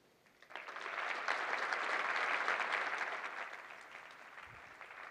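Conference audience applauding at the end of a talk. The clapping starts about half a second in, is loudest around two to three seconds, then dies away.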